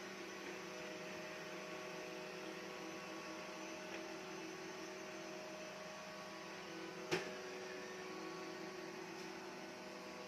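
Ximei G Smart robot vacuum cleaner running, a steady motor hum with a faint whine, and a single sharp knock about seven seconds in.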